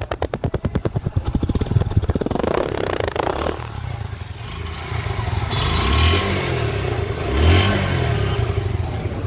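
Suzuki Gixxer's 155 cc single-cylinder engine, a 2020 model, idling with an even, rapid pulse, then revved with two short throttle blips in the second half.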